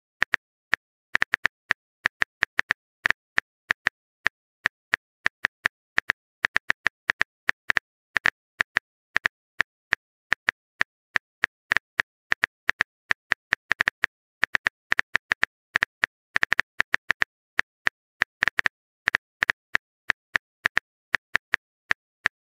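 Phone keyboard typing clicks, one short sharp tick per letter, in quick irregular runs as a text message is typed out.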